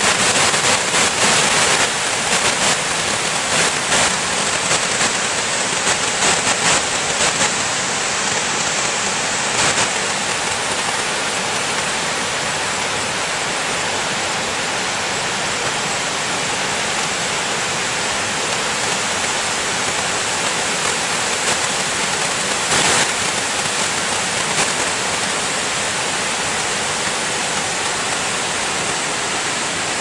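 Waterfall plunging over a rock face into a pool: a steady rushing hiss of falling water, a little more uneven with a few short crackles in the first ten seconds.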